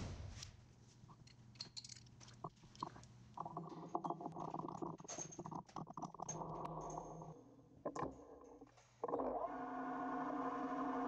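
Metal clinks and knocks as a workpiece is seated in a lathe chuck and the chuck is tightened. About nine seconds in, the lathe starts and its spinning chuck and spindle run with a steady hum.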